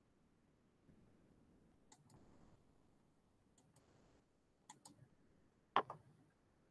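Four sharp double clicks over faint room tone, the last one near the end much the loudest.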